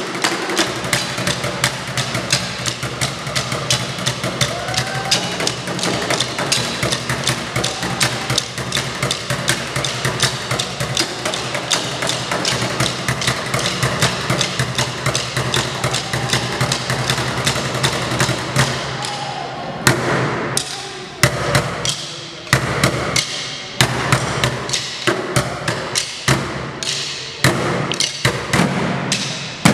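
Live percussion ensemble drumming with sticks: a dense run of rapid strikes, which changes about two-thirds of the way through to sparser, heavier accented hits with short gaps between them.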